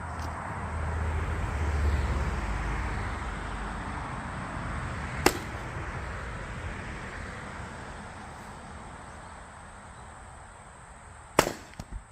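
Two sharp axe strikes splitting dry firewood, about six seconds apart, the second followed by two smaller knocks. A low rushing noise swells over the first two seconds and then slowly fades.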